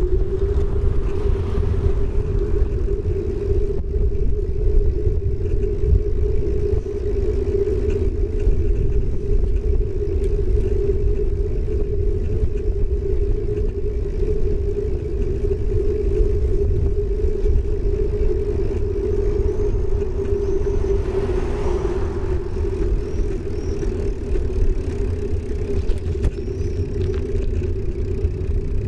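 Bicycle tyre rolling on an asphalt path, a steady hum over a low rumble, with wind buffeting the microphone.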